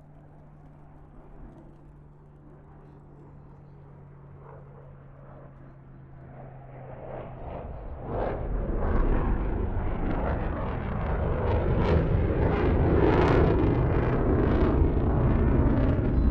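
Military jet fly-past heard from about 2 km away: a faint distant rumble that grows, then jumps to a loud, crackling jet roar about eight seconds in and stays loud.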